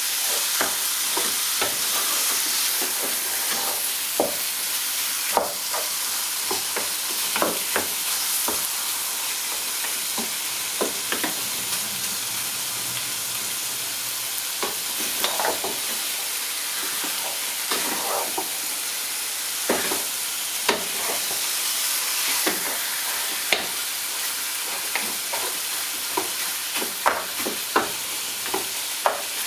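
Marinated mutton pieces sizzling in a little oil in a hot pan on high flame, with steady frying hiss, while a stirring utensil scrapes and knocks against the pan at irregular moments. It is a dry stir-fry with no water, searing the outer coating crisp so that the meat holds together.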